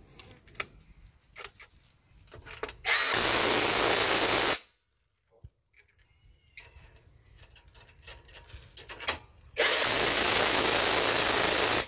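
J-LD 48V cordless impact wrench running in two bursts of about two seconds each, driving lug nuts back onto a car wheel; each burst stops abruptly. Between the bursts come light clicks of the nuts and socket being handled.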